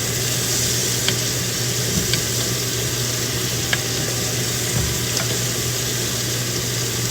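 Steak searing in a very hot skillet with butter and oil, sizzling steadily with a few sharp pops, over the steady hum of a kitchen exhaust fan.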